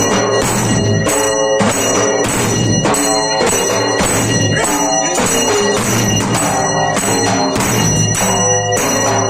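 Large steel-shelled folk drums beaten with sticks in a steady, driving beat, with small hand cymbals clashing and ringing over them.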